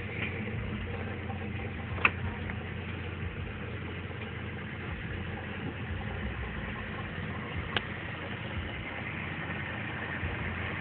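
1990 Ford Mustang LX 5.0's V8 idling steadily, with two sharp clicks, one about two seconds in and another near eight seconds.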